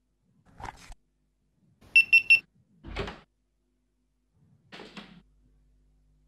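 Three quick, high electronic beeps about two seconds in, among a few soft knocks and clatters of someone moving about a home kitchen.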